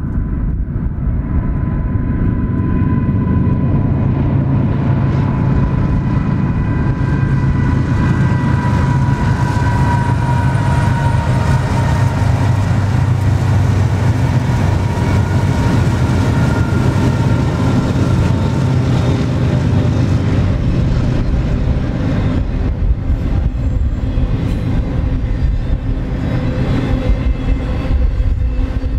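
Several BNSF diesel-electric freight locomotives passing at speed: a steady deep engine drone with a high whine that slowly falls in pitch as they go by, loudest about halfway through. In the last third, the double-stack container cars follow with a rumble and clatter of wheels on the rails.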